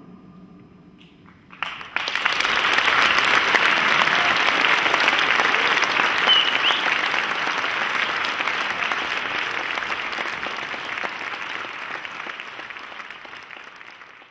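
The last of the dance music fades out, then an audience breaks into applause about a second and a half in; the clapping holds steady and slowly dies away near the end.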